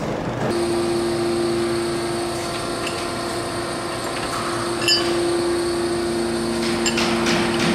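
Clausing Colchester engine lathe starting up about half a second in, its spindle drive and gearbox then running with a steady hum and whine. A single clink comes near five seconds, and a regular ticking of about three a second sets in near the end.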